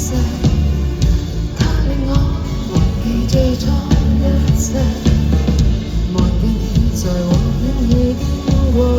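Pop band music playing a passage without lyrics: drum strikes over a steady bass, with a sliding melody line above.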